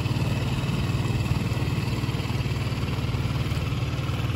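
A boat's engine running steadily at low speed, giving a low, even pulsing hum.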